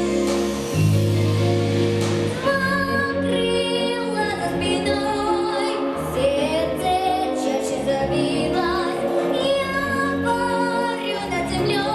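A woman singing a song with vibrato over instrumental accompaniment. The accompaniment plays alone at first, and the voice comes in about two seconds in.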